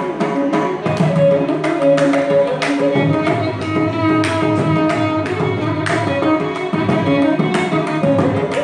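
Carnatic music in raga Madhyamavathi set to the five-beat Khanda Chapu tala: a violin melody with mridangam strokes over a tanpura drone.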